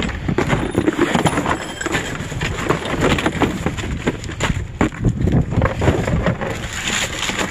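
A large cardboard box being carried and handled close to the microphone: irregular scuffing, rustling and crackling of cardboard, over low wind rumble on the microphone.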